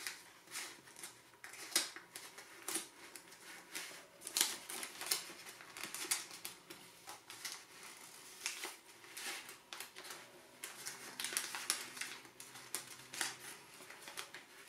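Sheets of origami paper rustling and crinkling as fingers fold, tuck and crease modules together: irregular crisp rustles and light clicks with no steady rhythm.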